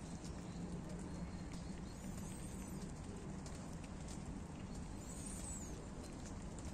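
Steady outdoor hiss with many small irregular ticks. A bird gives a short high chirping call twice, about two and five seconds in.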